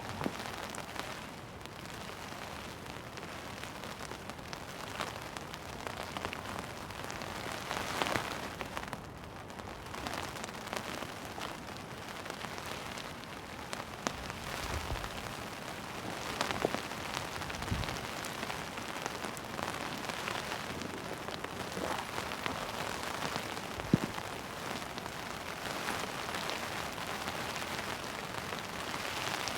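Heavy rain falling steadily, with scattered louder drops and knocks and one sharp knock late on.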